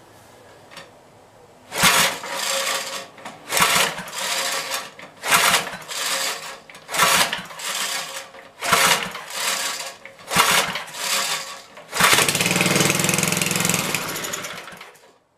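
5 hp Briggs & Stratton single-cylinder engine being pull-started: about six rope pulls with the engine turning over, then it catches about twelve seconds in, runs for about three seconds and cuts out suddenly. The stall is taken as a sign that the carburetor mixture screw at 1.75 turns out may not be open enough.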